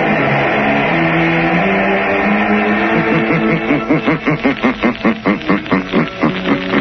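Closing theme music of the radio show: held chords, then a fast pulsing figure of about four notes a second from about halfway through.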